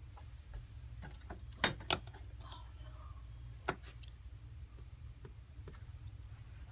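A handful of small sharp clicks and light ticks from tools and phone parts being handled during an iPhone 5c screen replacement: two close together about two seconds in and another a couple of seconds later, over a low steady hum.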